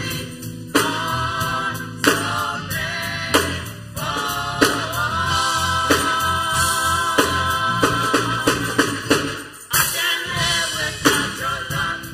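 Live gospel praise song: a group of women singing together over keyboard and a steady drum beat, with hand clapping.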